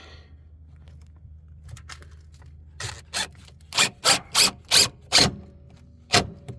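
A run of about seven short, sharp scraping strokes on wood, roughly three a second, then one more near the end: hand work on a 2x4 camper wall framing joint.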